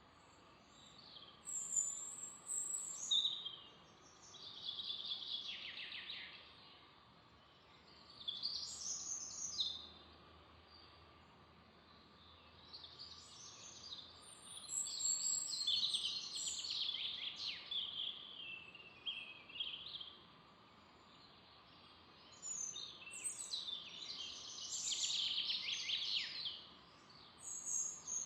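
Songbirds singing in a forest: about five bursts of high, rapid warbling and chirping, each a second to several seconds long, over a faint steady background hiss.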